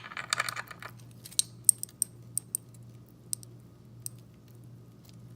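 A tablespoon scooping fajita seasoning with a short scraping rustle, then about seven light, ringing clinks of the spoon tapping out the spice over the next three seconds.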